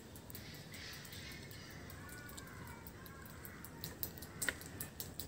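Besan batter being squished and mixed by hand in a stainless steel bowl, faint, with a few sharp clicks near the end, the loudest about four and a half seconds in. A bird calls faintly a little after two seconds in.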